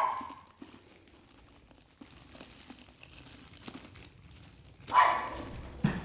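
A dog barks once about five seconds in. Before that come faint rustling and small knocks of a cardboard box being handled and opened.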